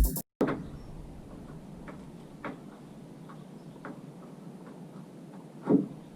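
Music cuts off abruptly at the start, followed by quiet room tone with a few scattered light knocks and clicks of something being handled, the loudest near the end.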